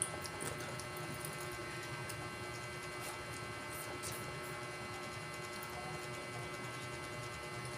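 Steady hum of a small electric motor, with a few faint light clicks about three and four seconds in.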